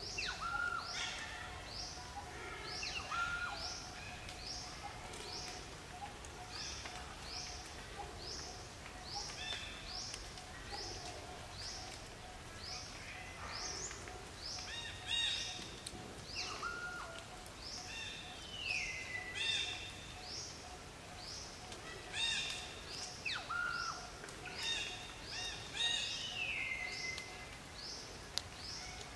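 Birds calling in the forest canopy: one repeats a short, high, falling note about once a second, while others give louder calls of several notes, some ending in a falling slur. A faint steady tone runs underneath.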